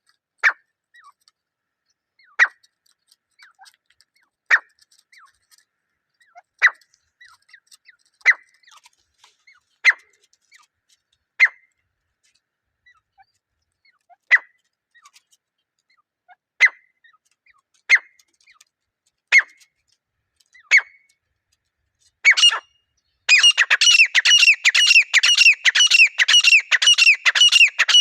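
Grey francolin (desi teetar) calling: single sharp, falling notes about every one and a half to two seconds, then, about five seconds from the end, a fast unbroken run of repeated notes, several a second.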